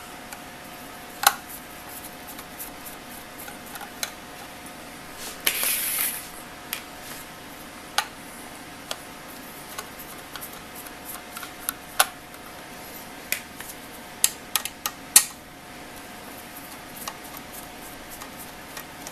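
Screwdriver and sheet-metal DVR case clicking and tapping as the unit is handled and its back-panel screws are worked, with scattered sharp clicks and a short scraping rub about six seconds in.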